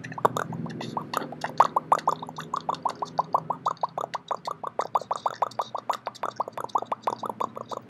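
Intro beat: a fast, even train of short staccato pulses, about six a second, over a low steady hum.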